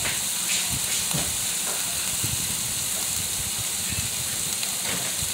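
Diced bell peppers, onions and jalapeños sizzling steadily in a frying pan, with scattered small pops.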